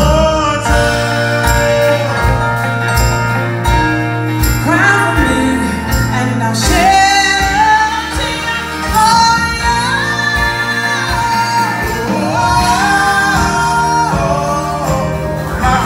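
A live band playing a soul song with sung vocals that slide between notes, over drums, keyboard and guitars.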